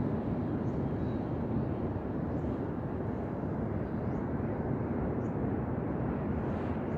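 Ocean surf washing onto the beach: a steady low rush of waves with no single break standing out.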